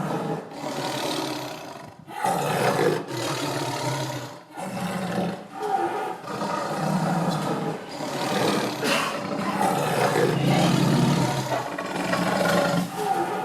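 A large animal giving a run of loud, rough calls, each a second or two long with brief breaks between.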